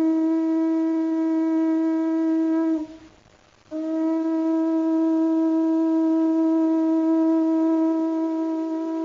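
Conch shell (shankha) blown in long, steady notes at one unchanging pitch. The first blast cuts off about three seconds in, and after a short gap a second blast starts and holds on.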